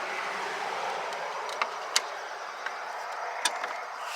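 A few sharp metallic clicks of a tool working at a parking-brake shoe return spring, over a steady rushing background noise.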